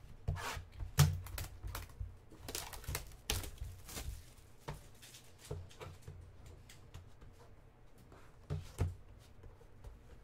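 Hands opening a sealed cardboard trading-card box: a run of irregular sharp clicks, taps and crinkles as the seal is peeled and the box is turned and pried open, the loudest about a second in.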